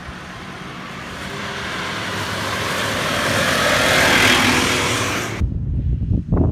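A Nissan Patrol off-road 4x4 drives past close by on a wet grassy track. Its engine and tyres get steadily louder to a peak about four seconds in. The sound then cuts off suddenly and gives way to gusty wind rumbling on the microphone.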